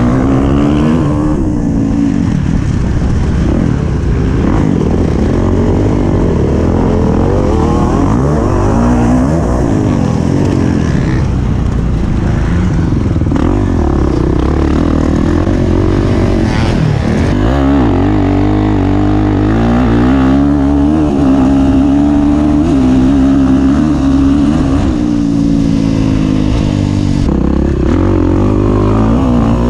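Dirt bike engine ridden hard, its pitch rising and falling over and over as the throttle is opened and closed through the gears. About two-thirds of the way in the engine's tone changes abruptly.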